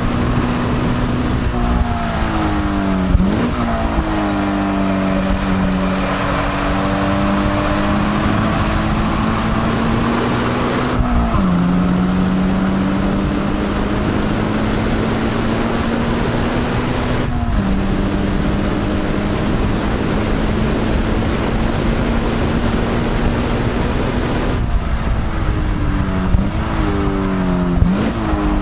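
Scion FR-S's 2.0-litre flat-four engine running at high revs on the track, heard from inside the cabin. The engine note drops sharply twice mid-way, then near the end dips and rises several times as the car brakes and downshifts into second gear.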